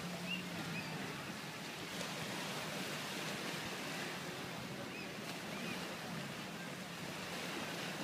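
Small waves of gentle surf washing onto a sandy beach, a steady hiss. A faint low hum from a motorboat offshore lasts about the first second.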